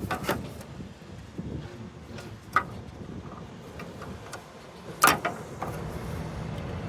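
A steady low vehicle rumble, with three short sharp clicks from handling small parts; the loudest click comes about five seconds in.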